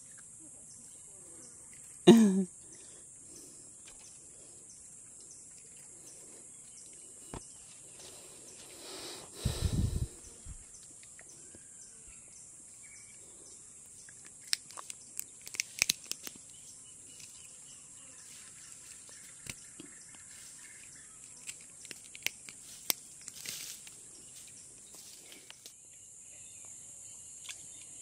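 Steady high-pitched drone of jungle insects. About two seconds in there is a brief loud pitched sound, around ten seconds a low thump, and later scattered sharp clicks.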